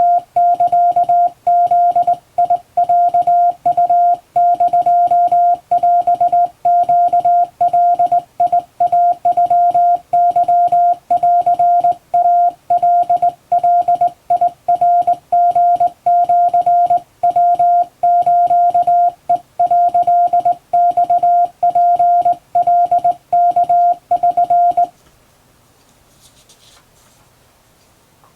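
Morse code sent by hand on a straight key: a single beeping tone keyed on and off in short and long elements, spelling out Japanese wabun code. The sending stops about 25 seconds in.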